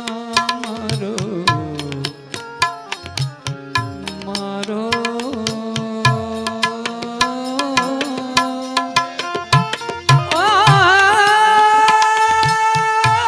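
Gujarati bhajan sung to tabla and harmonium: the voice draws out long, sliding notes over a steady tabla beat, and about ten seconds in rises into a louder held note with a wavering pitch.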